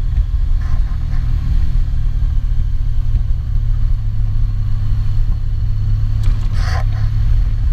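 Honda Crosstourer V4 motorcycle riding along, its engine rumble mixed with heavy wind buffeting on a GoPro Hero 4 with no external mic. The sound is a steady, loud low rumble, with a brief burst of noise near the end.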